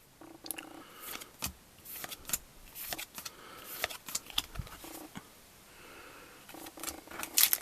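Trading cards being handled and flipped through: a scattering of light clicks and taps as the cards are sorted.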